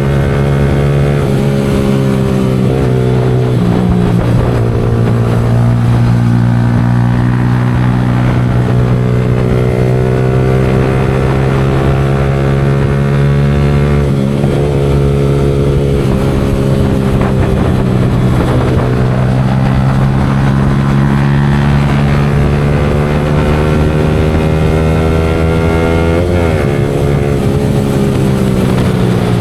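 Yamaha R15 V4's single-cylinder four-stroke engine running through an aftermarket Leo Vince exhaust while riding, its revs rising and falling gently over several seconds, with a few shifts in pitch.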